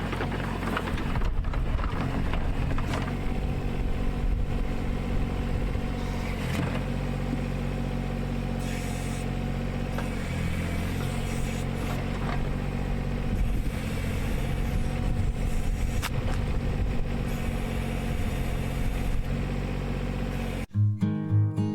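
Komatsu PC05-7 mini excavator's diesel engine running steadily while it digs, its pitch shifting a little as the hydraulics load it, with a few sharp knocks. About a second before the end it cuts to acoustic guitar music.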